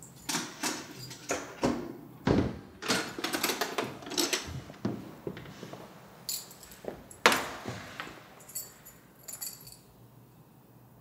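Keys jangling and rattling in a door lock, with clicks and knocks from the lock and the door being opened. About seven seconds in there is one louder bang, then a short high jingle of keys.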